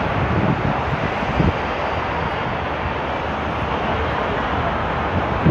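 Steady noise of city road traffic heard from a footbridge above a busy multi-lane road, with no clear single vehicle standing out.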